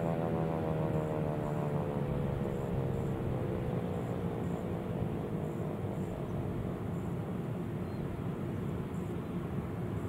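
Federal Signal 2001-130 electromechanical siren winding down at the end of its alert cycle, its tone falling and fading out about halfway through. A low steady rumble is left behind.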